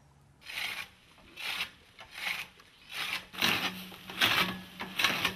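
Repeated rasping, scraping strokes, about seven of them, roughly one every two-thirds of a second, growing louder towards the end.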